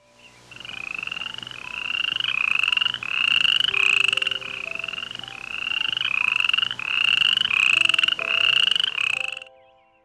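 A frog calling over and over: about a dozen short trilled calls in quick succession, each under a second and rising in pitch.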